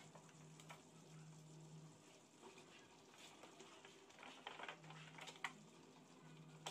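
Near silence: faint room tone with a low hum that comes and goes, and a few light clicks and taps, more of them near the end.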